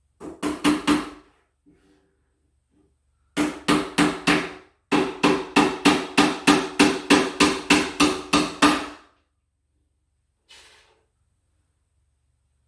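Hammer blows on a wooden closet organizer panel, in three runs: four, then four, then about thirteen quick blows, roughly three a second, each with a short ring. This is typical of nailing the unit together.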